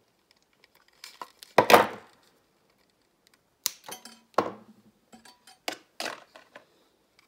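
Clicks, snips and knocks of pliers and side cutters working a plastic zip tie off the opened plastic soap-dispenser housing, with a louder clatter about one and a half seconds in and a few sharper clicks later on.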